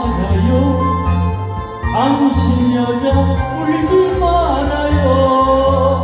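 A man singing a Korean trot song into a microphone over a backing track with a steady repeating bass line; his voice slides between notes.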